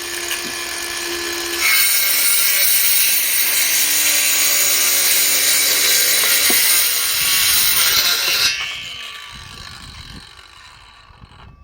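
Ryobi 18V cordless 5½-inch circular saw running free, then cutting through a board of old, hard wood for about seven seconds under load. Near the end the trigger is let go and the blade winds down with a falling whine.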